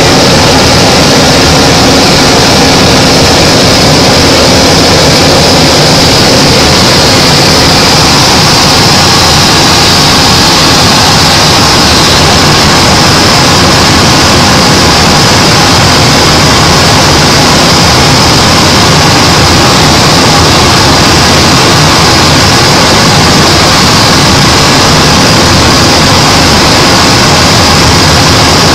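Single-engine propeller aircraft's engine and propeller running steadily, heard loud from inside the cockpit, with a steady high-pitched tone riding on top.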